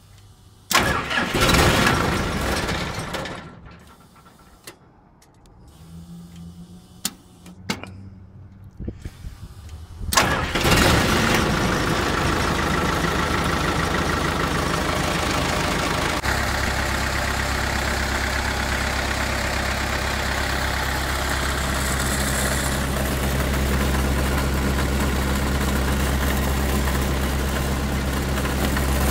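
Caterpillar/Perkins 3054C four-cylinder diesel engine being cold-started after long standing: a short burst of cranking that does not catch, then about ten seconds in it cranks again, fires and runs, settling into a steady idle a few seconds later.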